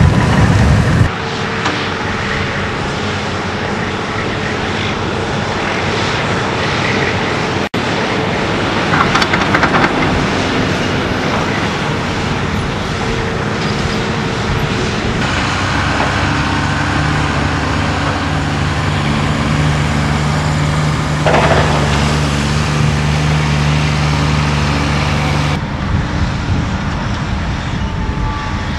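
Diesel engines of heavy earthmoving equipment running steadily: a Komatsu hydraulic excavator loading dump trucks, with the trucks' engines idling. A vehicle passes close with a low rumble in the first second.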